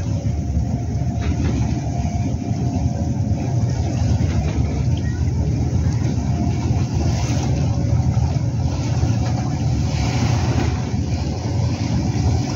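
Steady low rumble of wind and choppy water around a small fishing boat.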